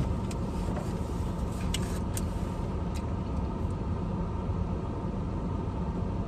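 Steady low rumble of a car's idling engine heard from inside the cabin, with a few faint short clicks.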